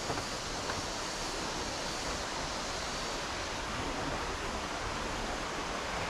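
Small stream flowing over rocks and a low cascade: a steady rush of water.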